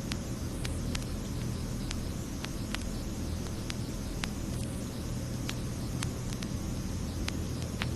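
Steady low rumble of a vehicle running at constant speed, with a hiss above it and irregular sharp clicks about twice a second.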